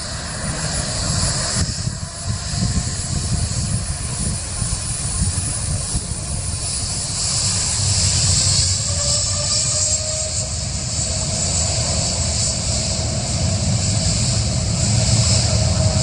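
Boeing 787-8 Dreamliner's GEnx turbofan engines running as the airliner rolls along the runway: a low rumble with a high hiss. A whine enters about halfway and climbs slightly in pitch as the sound grows louder.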